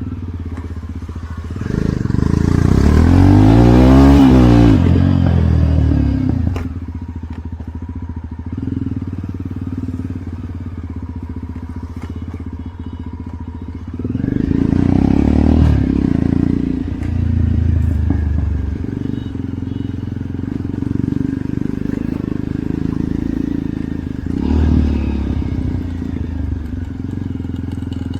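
Jawa Perak's single-cylinder motorcycle engine running steadily on the move, with three louder swells that rise and fall in pitch, about two, fourteen and twenty-four seconds in.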